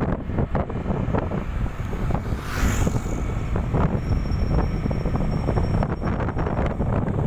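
Wind buffeting the microphone on a moving motorcycle, with engine and road noise underneath. A brief hiss swells about two and a half seconds in.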